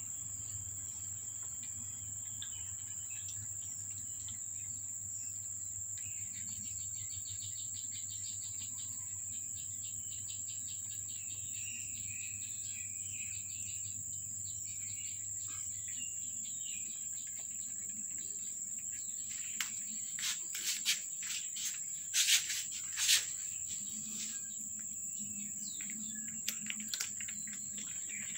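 Steady high-pitched insect drone, like crickets or cicadas, running unbroken. About twenty seconds in there is a cluster of sharp clicks and taps, the loudest two close together.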